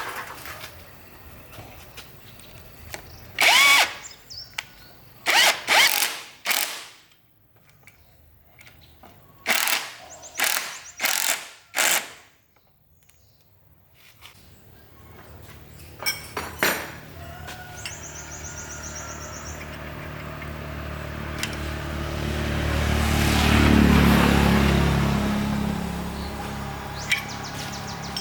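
A power tool running in about eight short bursts, then a steady motor sound that swells to a peak about two-thirds of the way through and eases off.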